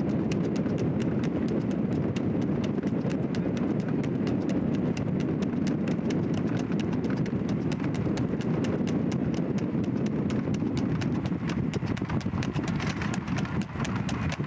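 A racing horse's hooves clip-clopping in a rapid, even beat on a paved road at a fast trot as it pulls a two-wheeled tanga cart, over a steady low rumble.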